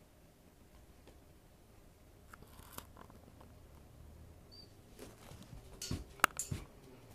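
A German Shepherd and a cat scuffling: mostly quiet room, then a quick cluster of thumps and rustles with one sharp click about six seconds in.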